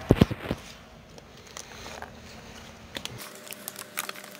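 Butter slime being squished and stretched by hand: a few dull thumps in the first half-second, then faint sticky clicks and small pops as it is kneaded.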